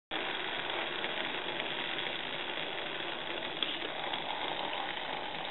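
Water coming to a boil in a Foster's beer-can pot over an Elite alcohol stove: a steady seething hiss, with a faint click about three and a half seconds in.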